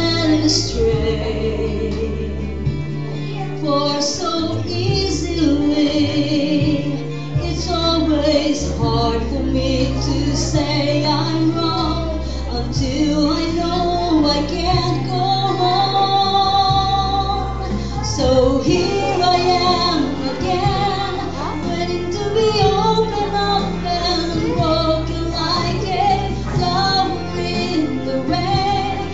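A woman singing a slow melody into a microphone over instrumental accompaniment with a steady, sustained bass line, heard through a PA.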